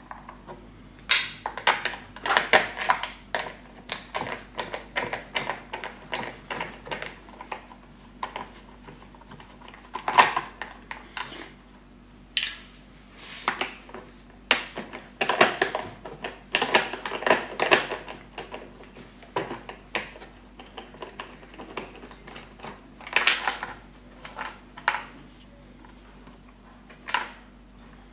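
Irregular clicks, rattles and metal clinks of an 8 mm nut driver unscrewing screws from the plastic threads of a lawnmower's battery cover, with loose screws clinking on a steel tray.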